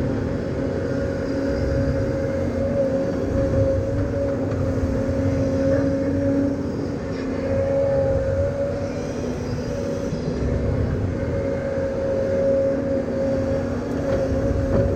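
An engine running steadily, with a constant whine over a low rumble.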